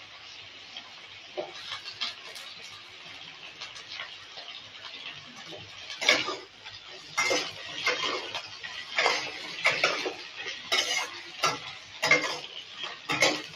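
Potato and cauliflower pieces frying in hot mustard oil in a kadai, with a steady sizzle. From about six seconds in, a metal spatula scrapes and knocks against the pan in repeated stirring strokes, roughly one or two a second.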